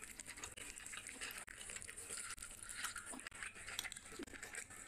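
Grilled chicken being pulled apart by hand, then bitten and chewed: a dense run of small crackling clicks and smacks.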